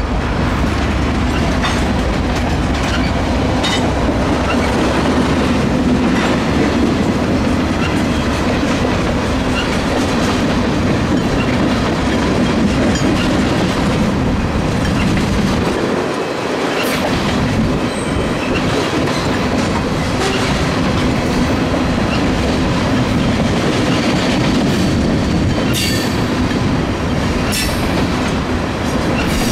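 Freight train tank cars rolling past: a steady rumble and rattle of steel wheels on rail, with scattered clicks of wheels over rail joints, more of them near the end.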